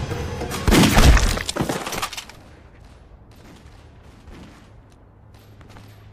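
Dramatic film score with a loud sudden crash or impact about a second in. The music then cuts away at about two seconds, leaving only faint scattered rustles and ticks.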